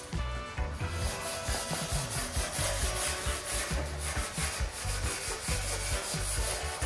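A hand tool scraping back and forth along a steel angle-iron frame in quick repeated strokes, starting about a second in. Background music with a steady beat runs underneath.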